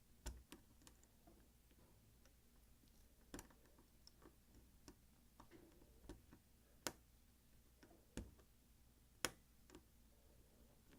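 Faint, irregular metallic clicks and ticks of a Peterson Gem hook pick working the wafers of an old Slaymaker Super wafer padlock, with a few sharper clicks standing out every second or two.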